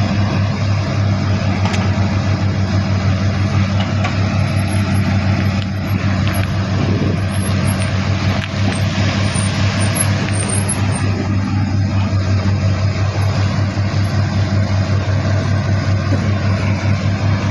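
Heavy diesel machinery running steadily: a loud, even, low drone with a fast, regular pulse.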